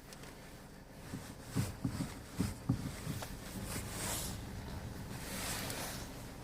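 A run of about five short knocks from the front end of a Kia Rio JB, the knock the owner traces to the suspension and steering column. A longer rushing noise follows.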